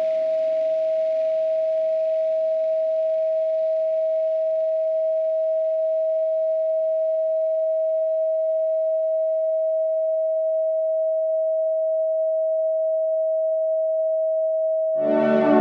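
Steady pure 639 Hz sine tone held unchanged, with the tail of ambient music fading away under it over the first several seconds. Ambient synthesizer music comes back in just before the end.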